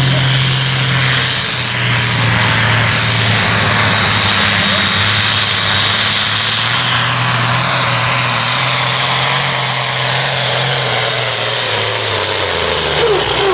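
Supersport-class pulling tractor engine running flat out under full load as it drags the weight-transfer sled, a steady deep engine note with a dense noisy rush over it. Near the end the engine note sags lower as the pull bogs down.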